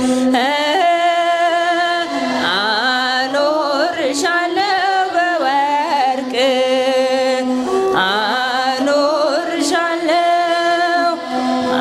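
A group of girls and women singing an Ethiopian Orthodox hymn together, in phrases of held notes with a slight waver.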